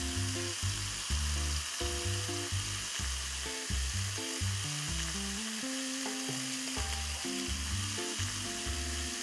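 Chicken strips sizzling in a hot frying pan as avocado pesto is added and stirred in with a spatula. Background music plays throughout.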